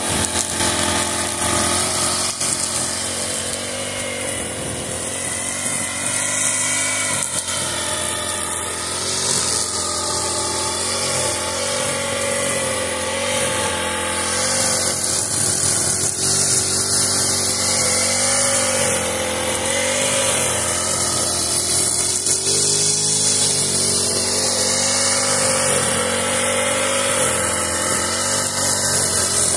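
Honda four-stroke petrol brush cutter running at working speed, cutting grass with its trimmer head; the engine note wavers up and down every couple of seconds as it mows.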